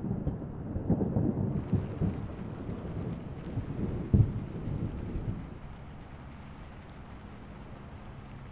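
Rain falling, with irregular low rumbling and thuds that die down about five and a half seconds in, leaving a soft, steady rain hiss.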